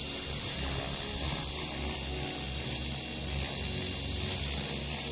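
A model jet turbine in a radio-controlled helicopter running on the ground: a steady high-pitched whine over a rushing hiss of air.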